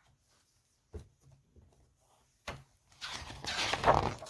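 Two light knocks of a book being handled, then a louder rustle of a paper page being turned, starting about three seconds in.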